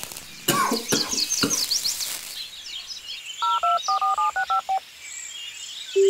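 Birds chirping and twittering, then a quick run of about eight telephone keypad dialing beeps, each beep a pair of tones sounding together.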